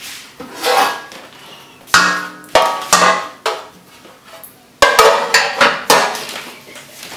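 Pots and baking pans clanking against each other and the dishwasher rack as they are loaded: a series of sharp metallic knocks, some ringing briefly.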